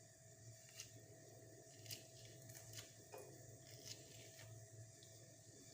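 Near silence with a few faint clicks, about one a second, as the pulp is worked out of half a lime.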